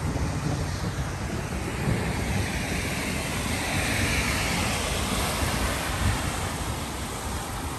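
Floodwater rushing steadily, with wind buffeting the microphone.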